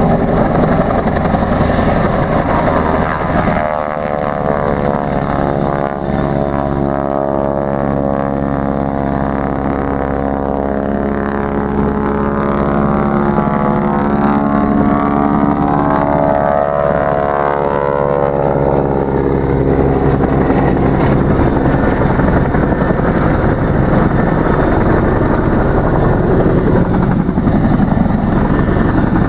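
A propeller aircraft's engine running loudly, its pitch drifting up and down, with wind rushing over the microphone.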